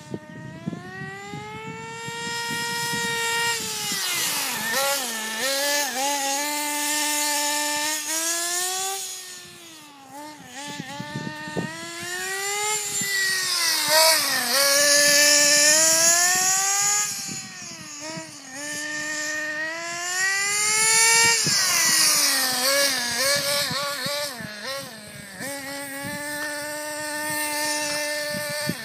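RC buggy's RD Logics .21 two-stroke nitro engine running hard as the car is driven, its high whine rising and falling again and again with throttle and passes. For the last few seconds it holds a steadier, lower pitch.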